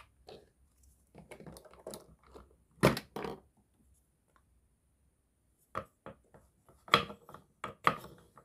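Wooden and plastic toy-kitchen pieces knocking and clattering as they are handled and set down, with two sharper knocks about three seconds in. After a short pause, a wooden toy knife knocks on a wooden cutting board as it cuts pieces of wooden toy food, in several quick taps.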